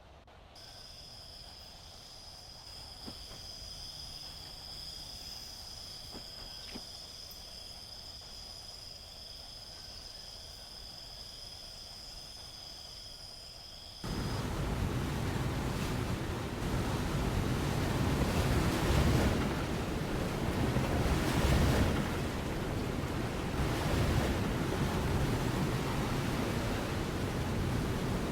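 A steady high-pitched whine over faint hiss, growing slowly louder, cuts off about halfway through and is replaced at once by loud rushing noise like static or surf that swells and eases.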